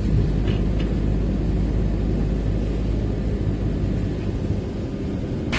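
Camper van driving on a wet road, heard from inside the cabin as a steady low rumble of engine and road noise.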